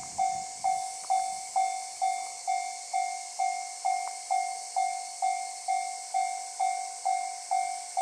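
Japanese railroad crossing warning bell ringing its steady electronic 'kan-kan', about two strikes a second, each a sharp ring that fades quickly: the crossing is signalling that a train is approaching.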